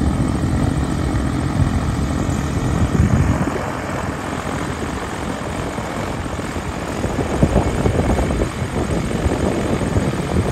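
Engine and propeller of an Evektor light-sport airplane running at taxi power as it rolls past. It makes a steady drone that eases a little about three and a half seconds in.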